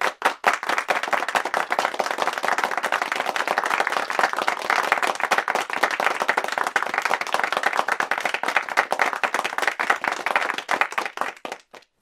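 Applause from a small crowd: dense, steady clapping that thins out to a few last scattered claps near the end.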